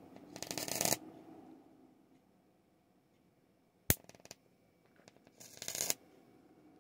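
High-voltage arc from a small ferrite high-voltage transformer crackling in two short, dense bursts of about half a second each, one near the start and one about five and a half seconds in. A single sharp snap with a few small clicks comes about four seconds in.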